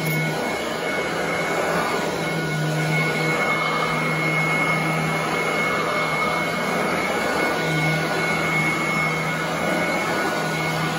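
Royal commercial upright vacuum running steadily as it is pushed over carpet, a constant motor hum with a high whine.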